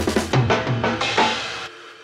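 Background music with a drum-kit beat that cuts off suddenly near the end, leaving a fading held tone.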